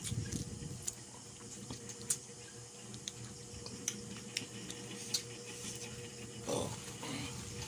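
Eating sounds at a seafood and chicken meal: scattered sharp clicks of shells, utensils or plates and wet chewing, over a faint steady hum.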